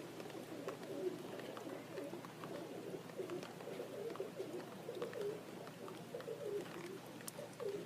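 Several domestic performing pigeons cooing, their low calls overlapping continuously, with a few faint clicks.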